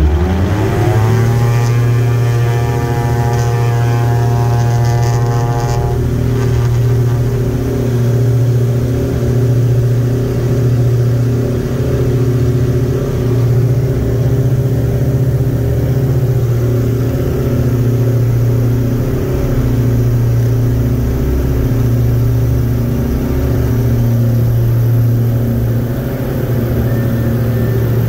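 Diamond Twin Star's twin engines, heard inside the cabin, running up to takeoff power. The pitch rises steeply in the first second, then holds as a loud, steady drone through the takeoff roll and climb. A higher whine on top drops away about six seconds in.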